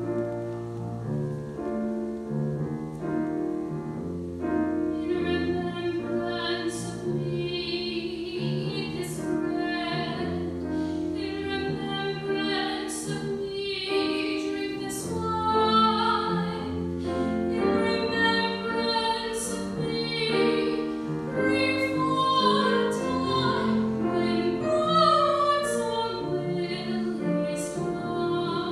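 Women singing a hymn with piano accompaniment.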